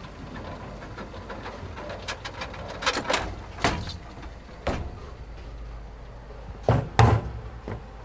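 Bowling ball return: a steady low rumble with a string of sharp clacks of balls knocking together, a cluster around three to five seconds in and the loudest pair about seven seconds in.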